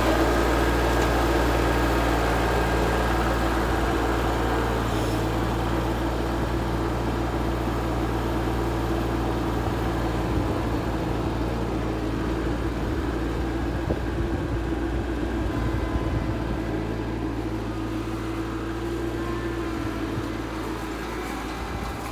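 New Holland compact tractor's diesel engine running steadily, fading gradually as the tractor drives away.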